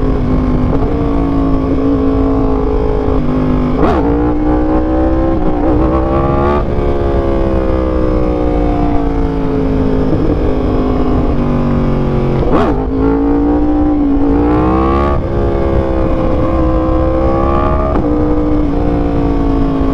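2023 Yamaha R1's crossplane inline-four engine running under load, its pitch climbing and falling with the throttle and jumping suddenly about four times as the revs change.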